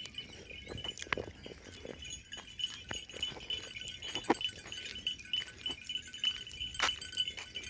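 Goat-farm sounds: scattered sharp metallic clinks and knocks over a steady high-pitched ringing hum, with no clear bleating.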